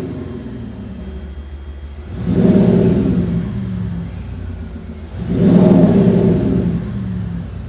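Car engine revved twice, each rev rising quickly and then falling back to idle. The exhaust note is the synthetic V6/V8-style sound played by a Kufatec Sound Booster active-sound generator over the engine.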